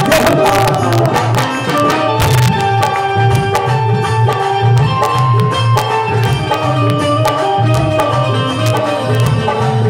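Live Indian devotional band playing an instrumental passage: steady tabla-style drumming under a melody of long held notes, with two loud crashes, one at the start and one about two seconds in.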